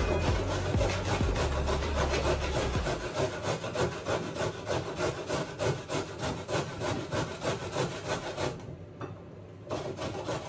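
A carrot being grated by hand on a stainless steel box grater: quick, even rasping strokes. The strokes stop briefly about eight and a half seconds in, then start again more softly.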